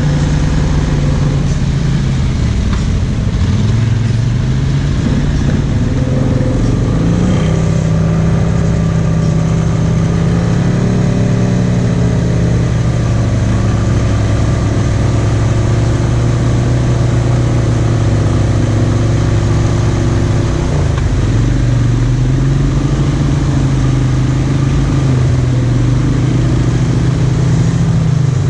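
Honda Rubicon ATV's single-cylinder engine running under throttle as the quad wades through deep muddy water. The engine note dips and climbs back twice as the rider eases off and gets back on the gas.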